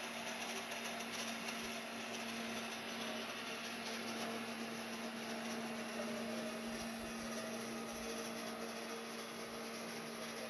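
Vacuum cleaner running steadily: a constant motor hum with a steady hiss of air.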